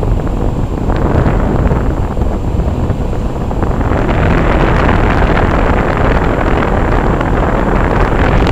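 Outdoor unit of a Bryant Evolution two-stage heat pump running in cooling mode, heard from just over its top fan outlet: the condenser fan's discharge air rushes loudly and steadily across the microphone as wind noise.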